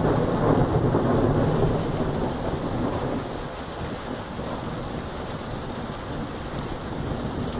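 Rolling thunder rumbling loudly, then slowly dying away after about two seconds into a lower, steady rumble.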